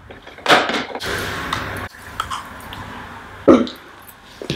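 A man's mouth and throat noises while eating a gummy jelly worm: a short sharp sound, then a low hummed 'mmm' for about a second. A second short, loud noise falling in pitch comes near the end.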